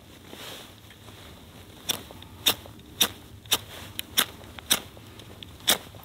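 Victorinox FireAnt mini ferro rod scraped hard against the back of a Victorinox pocket knife's saw blade, trying to strike sparks onto tinder. About seven sharp, short scrapes, roughly two a second, starting about two seconds in.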